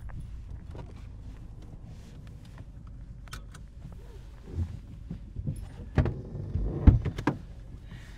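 Inside a car: an electric window running down over a low rumble, with several clicks and a sharp knock near the end.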